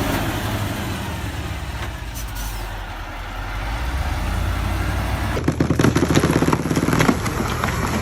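Heavy vehicle engine running steadily. About five seconds in it cuts to a dense run of cracks and clicks over a low rumble.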